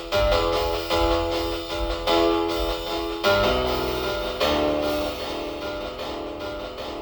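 Music: sustained instrumental chords with guitar-like plucked tones over a low bass, the chord changing every second or so.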